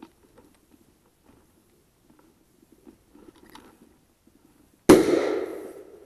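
A single shotgun shot about five seconds in: a sharp crack that dies away over about a second.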